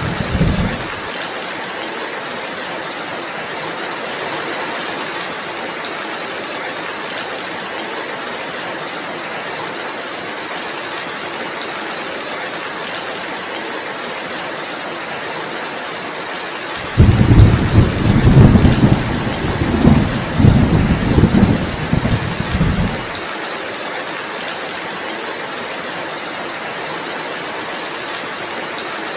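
Steady heavy rainfall with a long, deep rumble of thunder past the middle, the loudest part, lasting about six seconds. The tail of an earlier rumble fades out in the first second.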